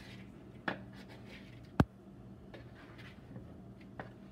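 Wooden spoon stirring broccoli florets and olive oil in a plastic mixing bowl: soft scraping with a few knocks of the spoon against the bowl, the sharpest a little under two seconds in. A low steady hum runs underneath.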